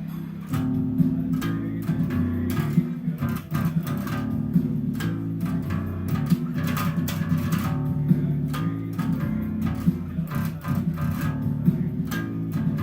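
Bass guitar playing a song's bass line over the song's other tracks, which play quietly underneath. About half a second in, a held low note gives way to a busy run of plucked notes.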